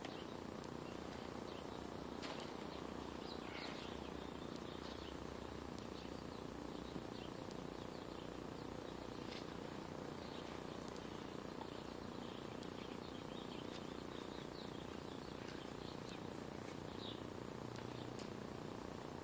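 Quiet, steady outdoor background noise with faint, scattered bird chirps and a few light ticks.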